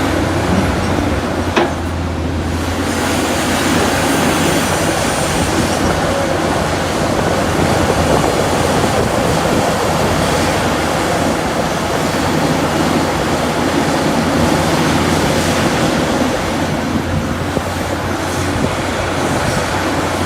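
Heavy diesel earthmoving machinery working: a steady low engine drone under a dense, continuous rumbling noise, with one sharp knock about one and a half seconds in.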